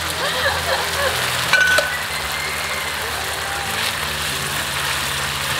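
Tuslob buwa, a pig-brain gravy, sizzling steadily in a hot pan at a street stall. A wavering voice is heard in the first second, and a short high tone with a few clicks comes about a second and a half in.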